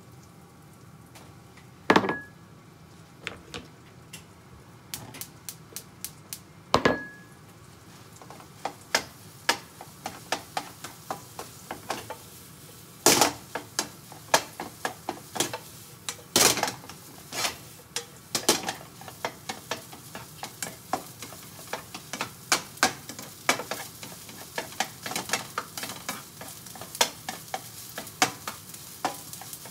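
Rice frying in a pan, sizzling, while a metal spatula stirs it, scraping and clicking against the pan. There are two sharp knocks in the first few seconds, and the clicks come faster and more often in the second half.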